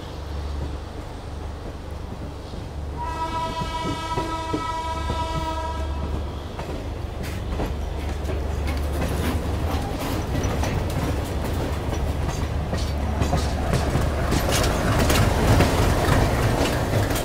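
Train running on the rails, heard from an open coach door or window, with a single train horn blast of about three seconds a few seconds in. After the horn, the wheels click over the track, louder and busier toward the end.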